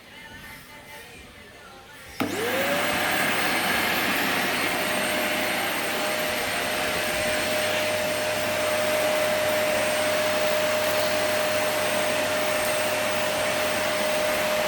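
Panasonic vacuum cleaner switched on about two seconds in: the motor spins up with a quickly rising whine, then runs steadily with a high, even whine and a loud rush of air.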